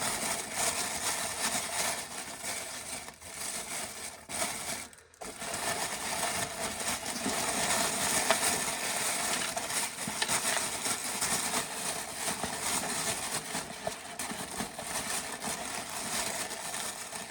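Corn sheller stripping kernels off ears of dried corn, the kernels rattling and clattering steadily, with a brief break about five seconds in.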